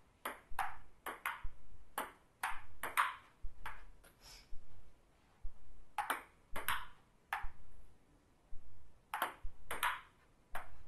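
Table tennis ball clicking back and forth off the paddles and table in three short rallies, with brief pauses between them.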